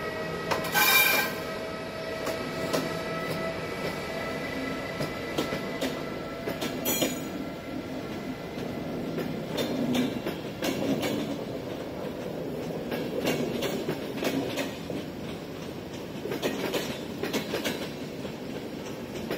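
Passenger coaches hauled by a ZSSK class 383 Siemens Vectron electric locomotive roll past at low speed, with a steady rumble and irregular clacks of the wheels over rail joints and points. A steady electric whine from the locomotive is heard in the first second or two and fades as it draws away.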